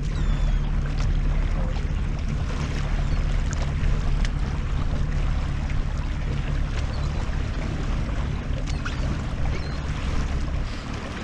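Wind buffeting the microphone over water lapping against the hull of a small fishing boat drifting with its outboard motor cut, a steady low rumble throughout.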